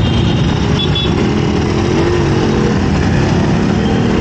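Two-stroke Yamaha RX motorcycle engine running, with road and traffic noise. A tone in it wavers up and down briefly about halfway through.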